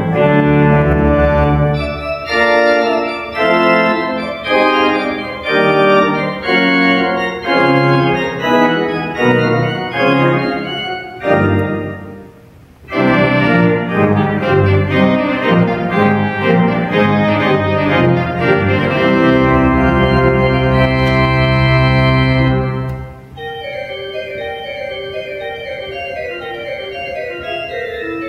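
A three-manual, 40-rank Schantz pipe organ plays a loud passage of quick repeated chords. There is a brief break about halfway. A long low pedal note sounds under held chords, then the organ drops suddenly to a much softer registration near the end.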